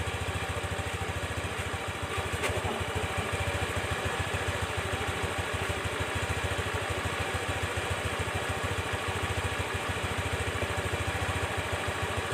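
Freshly rebuilt Honda Dio four-stroke single-cylinder scooter engine idling steadily, with an even run of firing pulses.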